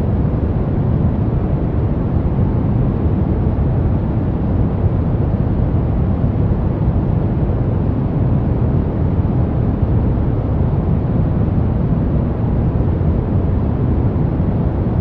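Soft brown noise: a steady, even rumbling hiss weighted toward the low end, with no events or changes.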